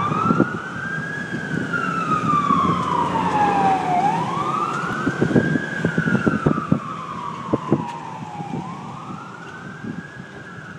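Fire engine siren on a wail: its pitch rises quickly and falls slowly, about once every four seconds, and grows fainter over the last few seconds. Scattered short knocks and clicks are heard under it.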